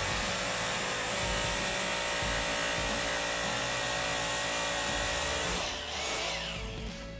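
Bosch Bulldog Extreme hammer drill boring into a concrete slab with a masonry bit. It runs steadily, then is let off about five and a half seconds in, and the motor winds down.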